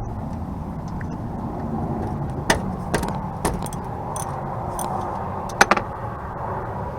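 A few sharp metallic clinks of hand tools on the rear brake caliper hardware while its bolts are worked loose, over a steady low rumble. The loudest pair of clinks comes near the end.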